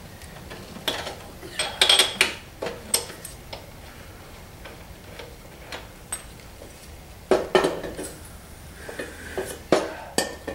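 Scattered metallic clinks and taps from handling a pump oil can of gasoline at a Tecumseh lawnmower engine's carburetor while priming it with fuel, in short clusters about a second or two in, around seven seconds in, and near the end. The engine is not running.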